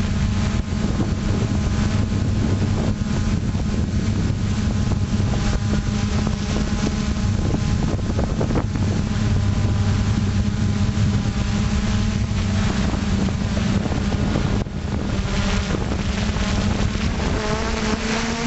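FPV drone's electric motors and propellers humming steadily as heard from its onboard camera, with some wind noise on the microphone; the hum dips briefly about 15 seconds in and shifts slightly in pitch near the end.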